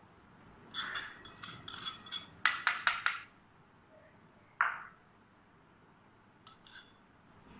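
Metal spoon scraping and clinking against a clay bowl and a stainless steel mixing bowl as cornflour and salt are spooned in. There are soft scrapes about a second in, a quick run of sharp clinks around three seconds in, and one more clink a little later.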